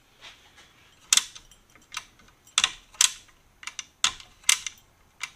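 Muzzleloader trigger being pulled and let go over and over, a string of sharp clicks about two a second. This is a check that the newly inletted trigger moves freely without rubbing on the brass trigger guard.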